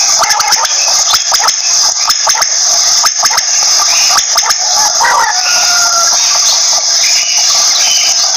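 Common quail calling in short repeated notes, over a steady high hiss and a rapid scatter of clicks.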